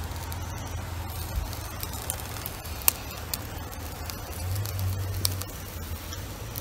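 Yakitori skewers grilling over charcoal, with a faint sizzle and a few sharp scattered pops and crackles. A low steady hum runs underneath.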